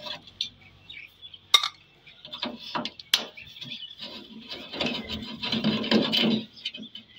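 Screwdriver undoing the screws on a gas fryer's sheet-metal burner frame: scattered metal clicks, a sharp one about a second and a half in and another about three seconds in, then a longer spell of metal rattling and rubbing near the end.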